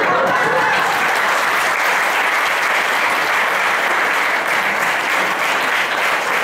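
Audience applauding in a theatre hall: many hands clapping at a steady, full level.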